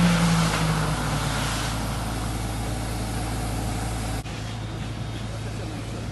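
A motor vehicle's engine tone fades out over the first second or two against a steady rushing noise. The sound drops abruptly to a quieter steady noise about four seconds in.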